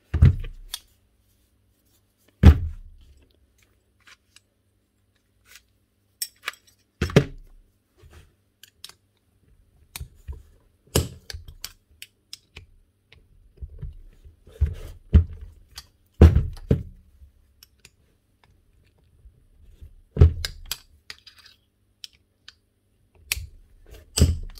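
Tools and metal parts being handled and set down on a workbench during a power-tool strip-down: about eight dull thunks spread through, with light clicks and small metal rattles in between.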